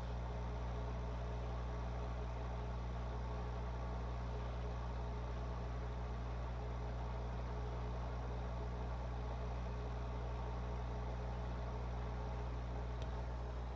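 Aquarium pump motor humming steadily.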